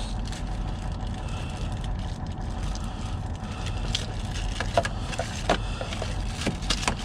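A steady low engine hum, like a truck idling, under small clicks and knocks of hands handling dash-cam accessories and packaging, which grow busier in the second half.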